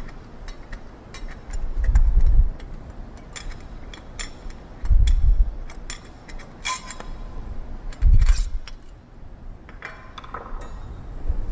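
Scattered small metal clicks and clinks as the pump's coupling guards and screws are handled, one clink ringing briefly, with three dull low thumps about three seconds apart.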